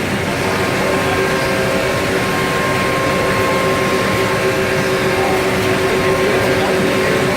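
Anderson Stratos Pro CNC router at work: a loud, steady machine drone with a steady whining tone.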